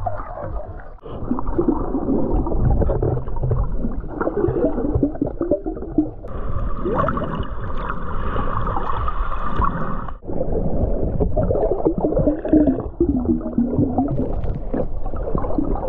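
Muffled underwater sound from a camera held below the surface: water gurgling and sloshing around the housing. It changes abruptly about a second, six seconds and ten seconds in.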